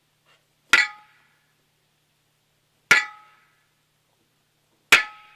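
Sledgehammer striking the top of a metal post in the ground: three ringing clangs about two seconds apart, each dying away quickly.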